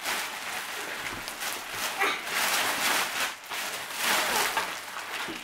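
Clear plastic wrapping and gift-wrap paper crinkling and rustling in several bursts as a present is pulled out of its packaging.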